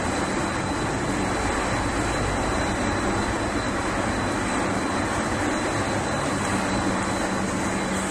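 Paper-making machine for testliner and fluting paper running on its production line: a steady mechanical din from its drives and rolls, with a low hum and a thin, steady high whine over it.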